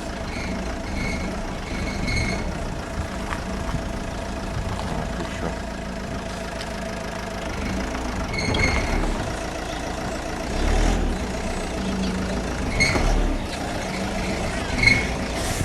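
Renault Scénic 3 1.5 dCi diesel engine running, with short high squeaks from under the car every few seconds. The squeak comes from the worn, burnt pressed-wire sealing ring between the catalytic converter and the exhaust downpipe.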